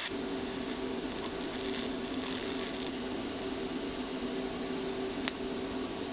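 A steady low mechanical hum with two held tones, and a single sharp click about five seconds in.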